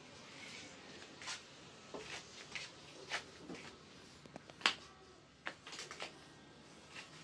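Faint workshop background noise with a scattering of short, light clicks and knocks, the sharpest one about four and a half seconds in.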